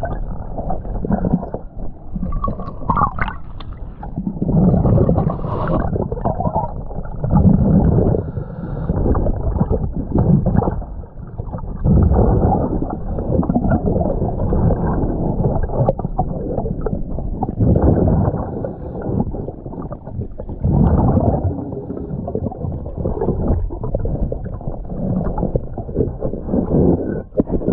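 A diver breathing underwater through a regulator: exhaled bubbles gurgle in surges about every three seconds.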